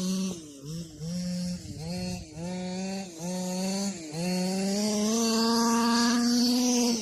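Stock 26cc two-stroke engine of a 1/5-scale RC short course truck revving in several short throttle bursts, its pitch dipping between each, then held at high revs for about three seconds.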